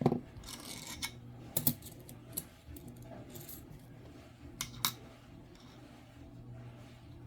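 Coins being handled on a table: a few sharp metallic clicks as they are picked up and set down, with soft shuffling between, over a steady low hum.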